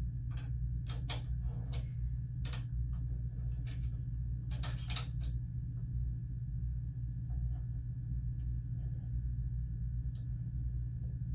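Light clicks and taps of a small part being handled and fitted by hand, scattered and irregular, over a steady low hum.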